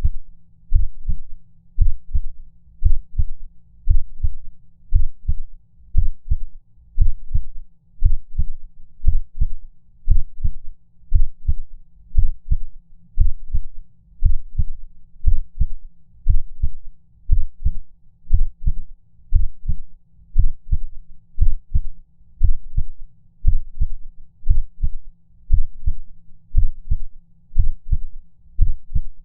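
A human heartbeat with low, paired lub-dub thumps about once a second and slightly uneven spacing: a heart skipping beats.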